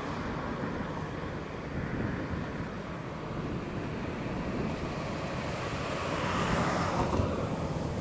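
Wind rumbling and buffeting on the microphone, with a louder whooshing swell about six to seven seconds in.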